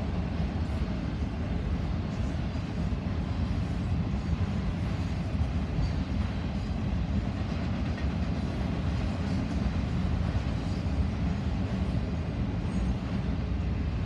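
Freight train of autorack cars rolling past at a distance: a steady, even noise of wheels on rail, heaviest in the low end.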